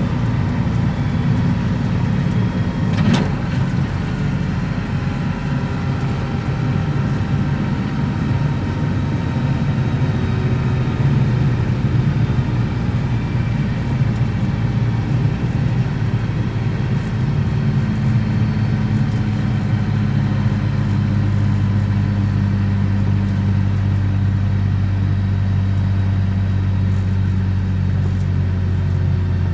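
BMW E36 325i's M50B25 straight-six, fitted with aftermarket headers and exhaust, running under way and heard on board. The engine note holds fairly steady, with a short sharp click about three seconds in and a slight rise in pitch a little past the middle, after which it settles into a steady drone.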